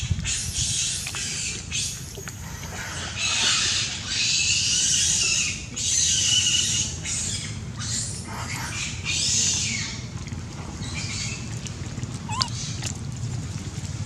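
Macaques screaming in a string of shrill, harsh bursts through most of the first ten seconds, then a single short squeak near the end.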